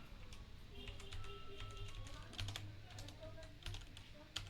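Typing on a Kreo computer keyboard: irregular key clicks, fairly quiet, with faint music underneath.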